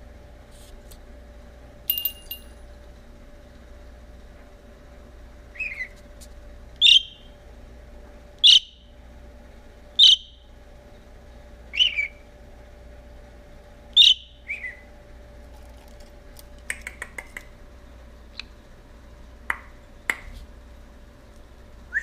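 Budgerigar giving a series of short, loud chirping calls, each sliding down in pitch, about seven of them spaced a second or two apart, then a few fainter calls near the end. A brief ringing sound comes about two seconds in and a quick run of soft clicks in the later part.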